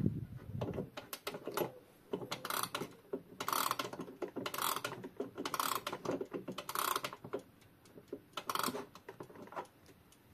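Junghans wall clock's mainspring being wound with a key: the click and ratchet chatter in a short burst of clicks with each turn, about once a second, six times, stopping shortly before the end.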